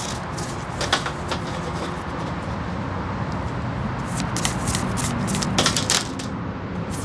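An oracle card deck being shuffled by hand, with several short sharp card slaps and clicks, about a second in and again around four and a half to six seconds in. A steady low background hum runs underneath.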